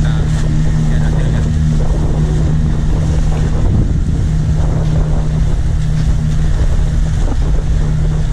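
Fishing boat's engine running at a steady pitch, with wind on the microphone.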